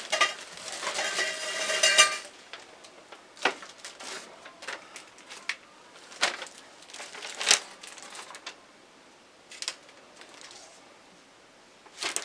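Metal garment-rack bars and plastic connector pieces being handled and knocked together: a burst of clattering, ringing metal for the first two seconds, then scattered clinks and knocks.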